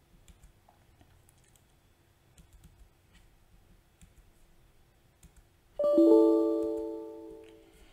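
Windows error chime sounding once about six seconds in: a bell-like chord of several notes that dies away over about two seconds, the alert for an error dialog popping up. Before it, a few faint mouse clicks.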